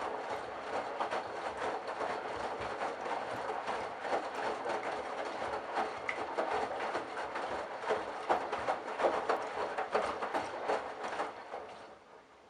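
Candy Bianca washing machine drum turning on a wash cycle, with the wet laundry tumbling and water sloshing and clattering in irregular small knocks. The drum stops just before the end.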